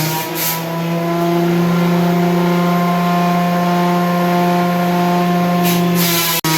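Ryu 12-inch portable wood planer running, its motor and cutter head giving a loud, steady hum with a whine above it; the sound drops out for an instant once near the end.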